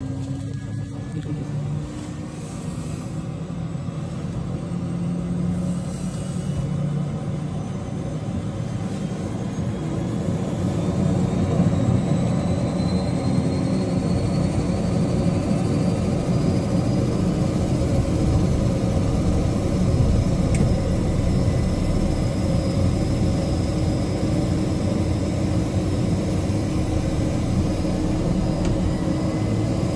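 De Havilland Canada DHC-6 Twin Otter floatplane's Pratt & Whitney PT6A turboprop engine and propeller running, heard from inside the cabin as a steady drone. The drone grows louder over the first ten seconds or so, and a faint whine rises slowly in pitch through it.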